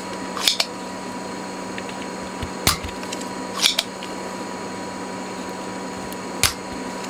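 Spring-loaded desoldering pump (solder sucker) sucking solder from circuit-board joints: two sharp snaps as it fires, about four seconds apart, alternating with clicks of its plunger being pushed back down to re-cock. A steady low hum runs underneath.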